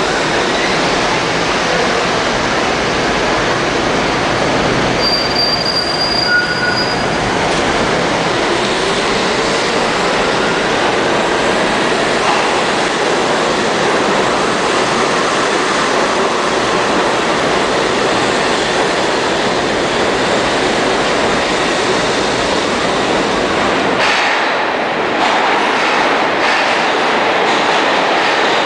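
New York City subway train running through the station at speed: a loud, steady rumble of steel wheels on rails, with a brief high wheel squeal about five to seven seconds in.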